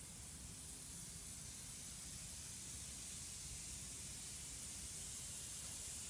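Quiet room tone: a steady hiss with a faint low hum beneath, slowly growing a little louder.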